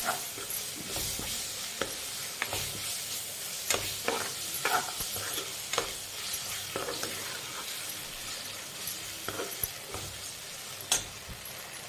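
A steel spoon stirring and scraping through onion, capsicum and freshly added ground tomato frying in a non-stick kadai over a steady sizzle. The spoon knocks and scrapes against the pan at irregular moments.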